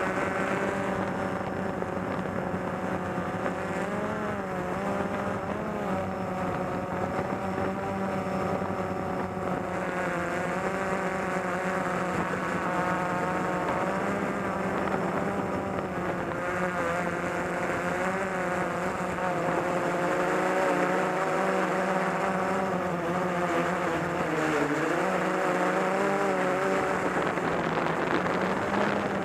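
Camera drone's electric motors and propellers running in flight: a steady buzz with several whining tones that waver up and down in pitch together as it manoeuvres.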